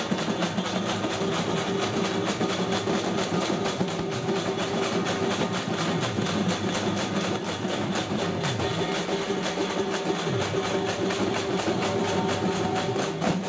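Troupe of dappu frame drums beaten with sticks in a fast, even rhythm, over a steady held tone.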